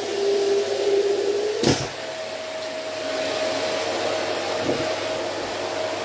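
Vacuum cleaner running steadily with a rush of air and a constant motor whine; a sharp knock about a second and a half in, after which the whine steps up to a higher pitch and holds there.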